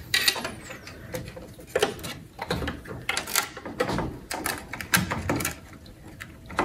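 Irregular clicks, knocks and scrapes of the Power Mac G4's factory fan being handled and pushed into place over the CPU card.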